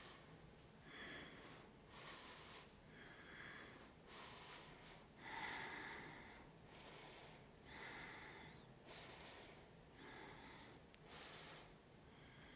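A person breathing slowly in and out, faint, with a breath roughly every second.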